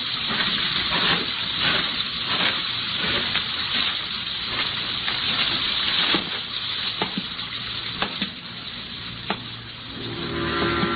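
Radio-drama sound effect of steady rain, with a few sharp knocks through it. Near the end, a steady held chord comes in.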